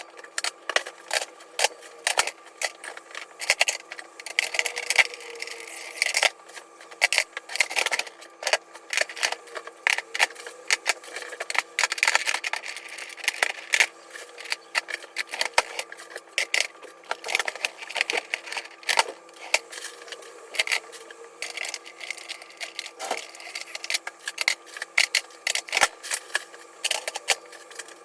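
Rapid, irregular clicking and clattering of small hard objects being handled, several knocks a second, over a faint steady hum.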